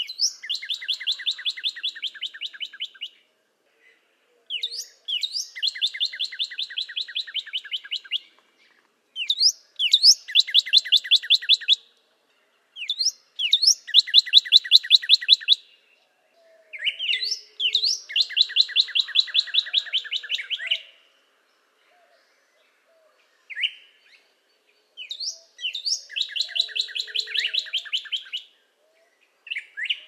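Northern cardinal singing: six phrases, each a couple of rising whistles followed by a fast run of repeated notes lasting about three seconds. Short pauses separate the phrases, with a longer pause about two-thirds of the way through.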